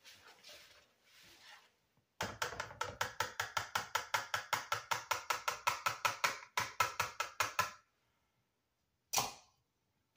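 A metal utensil stirring a flour and pumpkin mixture in a plastic mixing bowl, clicking against the bowl in a fast, even run of about seven strokes a second for some five seconds, then stopping. One more short knock follows about a second later.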